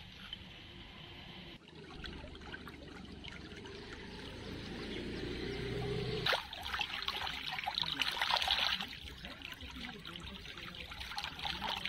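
A low rush that swells for about six seconds, then a sudden change to a shallow stream trickling and splashing over stones, with hands dipping into the water.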